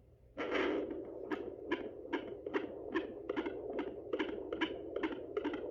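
Sonoline B fetal Doppler picking up a fetal heartbeat: a fast, regular whooshing pulse of about two and a half beats a second, around 150 a minute, a normal fetal heart rate. It comes in about half a second in over a steady Doppler hiss.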